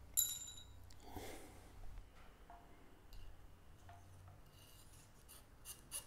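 Faint handling of cut brake cable housings and small parts: a light metallic clink with a brief ring about a quarter second in, then soft rustles and scattered small clicks.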